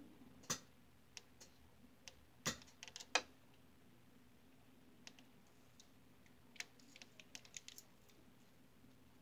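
Irregular small plastic clicks and taps as fingernails and nail tips knock against a jointed plastic practice hand. They come in two loose clusters, the loudest about three seconds in.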